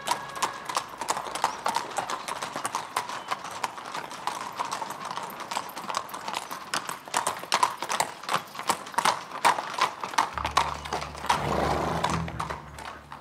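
Hooves of several horses clip-clopping at a walk, a dense, uneven run of knocks. Low background music comes in about ten seconds in.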